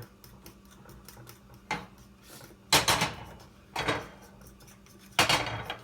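Four sharp knocks of a kitchen utensil against a mixing bowl of pancake batter, roughly a second apart.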